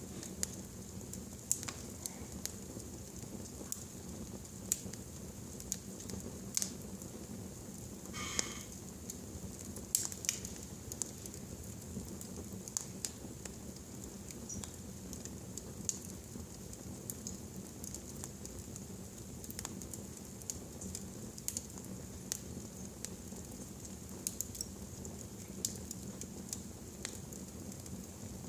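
Wood fire burning in a fireplace: a steady low rush with irregular crackles and pops, and a brief thin whistle about eight seconds in.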